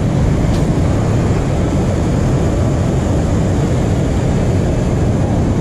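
Steady, loud rush of river water flowing fast below a dam, an even noise with no breaks and a heavy low rumble.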